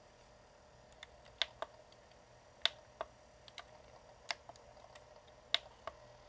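Buttons on an Insignia portable DVD player being pressed: about nine sharp plastic clicks at irregular spacing, over a faint steady hum.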